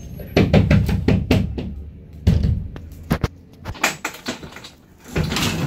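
Irregular knocks, thumps and clatters inside the enclosed metal cargo box of a moving truck, over a low rumble in the first two seconds, with a louder rustling noise near the end.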